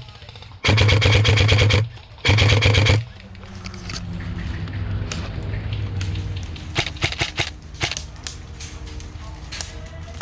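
An airsoft rifle firing on full auto in two rapid bursts, the first about a second long and the second shorter. After that come quieter scattered pops and clicks of shots further off.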